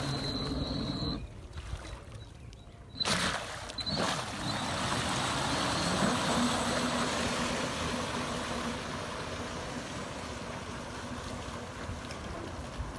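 Remote-controlled motorized lifebuoy driving through the water: a steady rush and spray of water from its jets, with a faint steady motor hum. The sound drops away about a second in and comes back loud about three seconds in.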